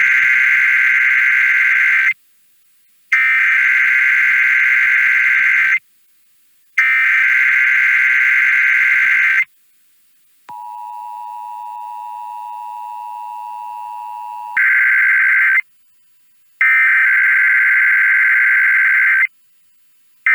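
Emergency Alert System test tones: three loud SAME digital header bursts, each about two and a half seconds long with a second of silence between them. Then comes the steady two-tone EAS attention signal for about four seconds, followed by more header bursts.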